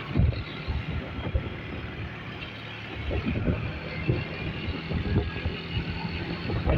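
Strong wind buffeting the microphone in irregular low rumbles, with a steady low vehicle hum joining about four seconds in.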